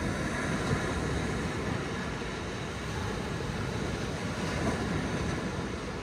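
Small ocean waves breaking and washing up a sandy beach: a steady rushing surf with a low rumble underneath.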